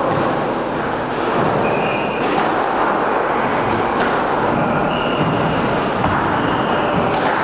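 A loud, steady rushing rumble runs throughout. A few short, high squeaks of court shoes on the wooden squash floor come about two seconds in and again twice near the end, with a couple of sharp knocks between them.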